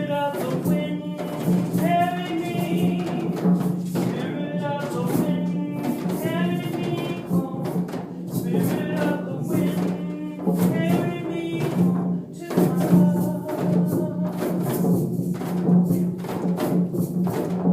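Group hand-drumming on djembes, dunun bass drums and frame drums in a steady, gentle rhythm, with a voice singing a chant over it.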